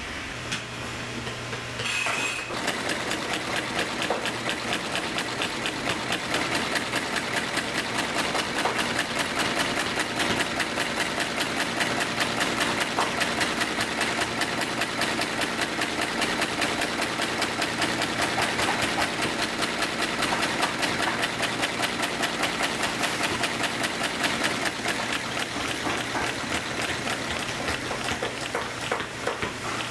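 Heavy industrial sewing machine stitching through a thick leather boot sole: a rapid, even run of needle strokes. For the first two seconds or so, only a steady machine hum is heard before the stitching starts.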